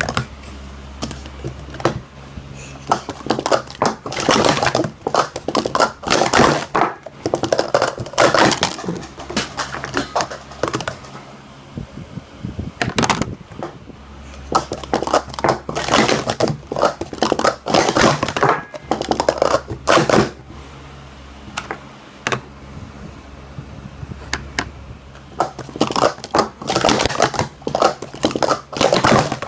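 Plastic sport-stacking cups clattering rapidly as they are stacked up and down in fast sequences. The clicks come in dense runs a few seconds long, with pauses between them.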